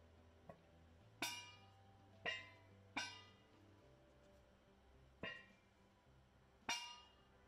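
Stainless steel pot lid clinking against a dough-sealed biryani pot as it is set and pressed into place: one faint clink, then five sharp ringing clinks at irregular spacing, over soft background music.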